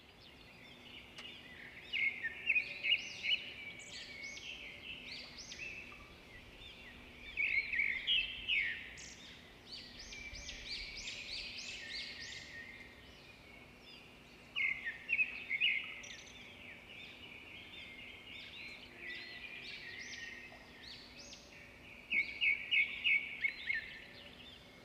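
Songbirds chirping, with a burst of rapid high chirps every several seconds and softer calls in between, over a faint steady hum.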